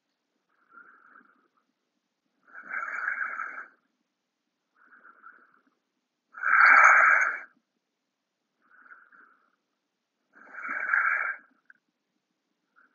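A person's slow, deep breathing in a yoga rest pose, three full breath cycles. Softer and louder breaths alternate about every two seconds, each lasting about a second.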